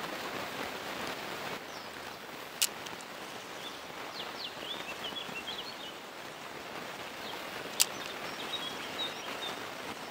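Steady rush of a small river running high after rain, with a bird chirping in quick short phrases twice. Two sharp clicks about five seconds apart stand out as the loudest sounds.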